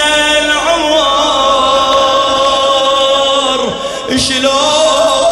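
Male radood chanting a Shia latmiya lament in Arabic, drawing out long held notes, with a short break and a drop in pitch about four seconds in.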